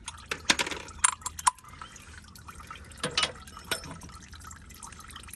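Metal clinks and taps of an oil filter wrench being fitted onto a car's oil filter, with oil dripping into the drain pan.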